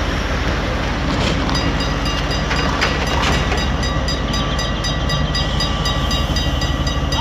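CRRC Ziyang CDD6A1 diesel-electric locomotive running close by as it rolls slowly past. A steady deep engine throb carries a thin high whine over it.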